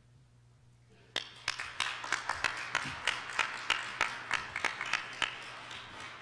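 Audience applauding, starting suddenly about a second in and tapering off near the end. One person's louder claps stand out about three times a second.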